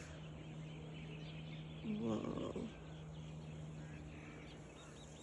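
Quiet outdoor background with a faint steady low hum; about two seconds in, one short distant animal call.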